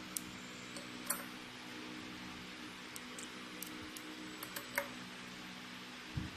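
Steady low hum with a few short, light clicks and clinks scattered through it, the loudest about three quarters of the way in.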